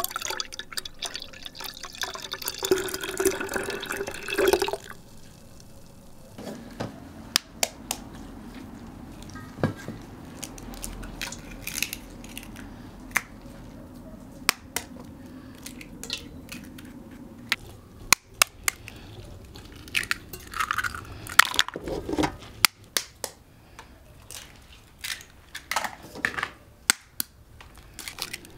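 Eggs being cracked one after another against the rim of an enamel basin and dropped in: a long run of separate sharp taps and cracks. The first few seconds hold a wet splashing, sloshing liquid sound.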